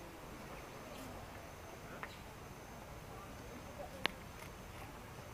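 Steady forest ambience with a faint high insect hum that comes and goes, broken by two short sharp clicks, a small one about two seconds in and a louder one about four seconds in.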